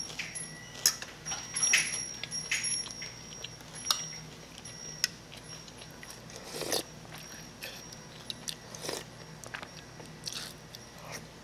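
Close-up eating sounds: chewing a mouthful with small clicks of cutlery, then broth sipped off a spoon, twice, around the middle and a little later.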